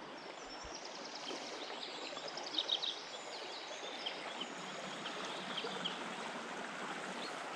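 Steady rushing of a swollen river running fast and turbulent over a riffle.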